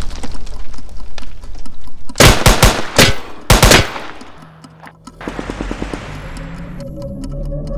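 Gunfight gunfire: rapid automatic fire, then several very loud single shots between about two and four seconds in. After a brief lull near five seconds in, another fast run of shots comes in under film music with sustained notes.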